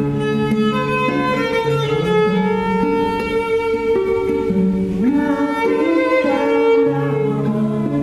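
Violin played with the bow in long, sustained melodic notes over a plucked acoustic guitar accompaniment.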